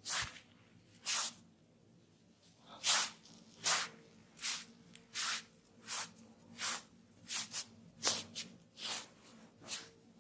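Massage strokes: a masseur's hands swishing and rubbing on hair or skin, about fifteen short hissing strokes over ten seconds, coming a little faster in the second half.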